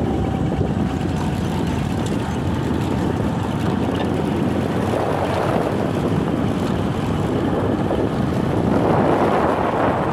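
Steady wind rumble on the microphone from riding along a road, with the vehicle's running noise underneath; it swells slightly near the end.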